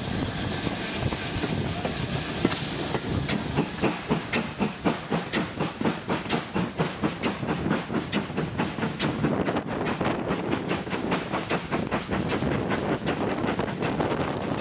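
Steam locomotive working along the line, its exhaust beating in a steady rhythm of about three to four beats a second from about three seconds in, with a steady hiss and wind rushing past the open carriage window.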